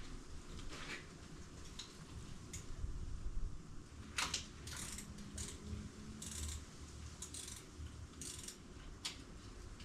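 Socket ratchet clicking in several short runs, starting about four seconds in, as a bolt is worked loose.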